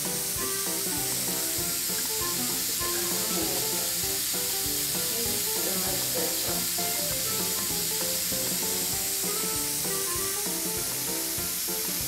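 Reptile enclosure's misting system spraying with a steady hiss, over background music with a steady beat.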